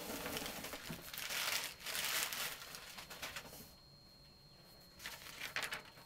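Packaging crinkling and rustling as an item is handled and pulled from a shipping box. It is loudest in the middle and dies down about three and a half seconds in, with a few faint clicks near the end.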